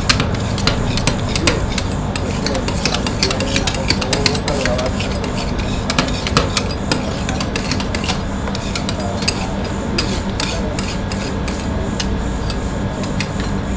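Metal spatulas scraping and chopping a half-frozen mixture on a stainless-steel rolled-ice-cream freezing plate, with frequent sharp clicks and taps of metal on metal, over a steady low hum.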